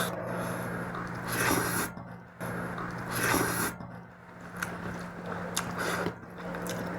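A person chewing a mouthful of goat fat with rice, making wet chewing and smacking noises in a few short bursts about every two seconds.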